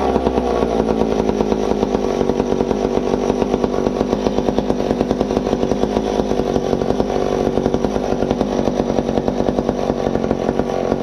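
McCulloch Pro Mac 1010 two-stroke chainsaw running at a steady idle, its engine pulsing evenly.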